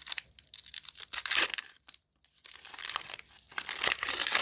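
A Panini Adrenalyn XL trading-card packet being torn open, its wrapper crinkling and crackling in two spells with a short pause between.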